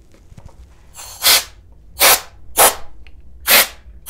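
Can of compressed-air duster giving four short blasts about a second apart, starting about a second in, blowing dust out from between the clear panes of a control panel.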